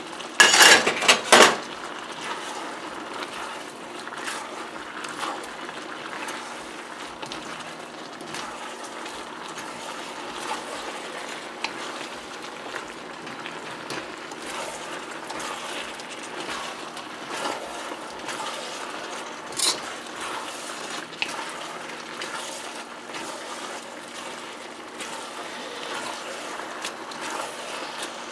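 Beef, noodles and vegetables sizzling steadily in a hot steel wok while they are stir-fried, with scattered clicks and scrapes of wooden and metal utensils against the pan. In the first second or two there is a louder clatter of knocks and scrapes.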